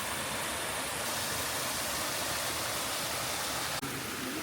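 Steady rush of flowing spring water, an even hiss with a brief dropout near the end.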